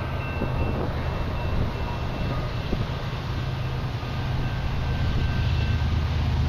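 Approaching Canadian Pacific GE diesel freight locomotives: a steady low engine drone in the distance, growing slowly louder as the train nears.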